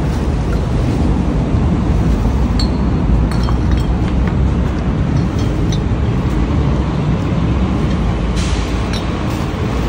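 Steady low rumble of road traffic, with rustling of a plastic garbage bag and light clinks of litter being gathered, clustered about three seconds in and again near the end.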